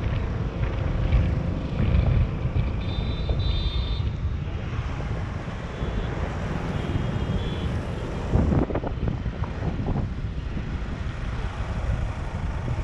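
Wind buffeting the camera microphone on a moving motor scooter, over the scooter's engine and road noise, with a few faint high tones from traffic.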